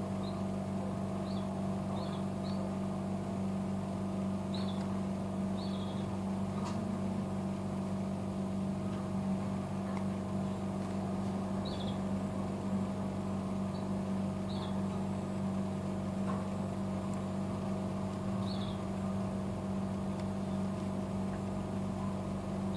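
Steady low machine hum, with faint short high chirps now and then and a few light clicks.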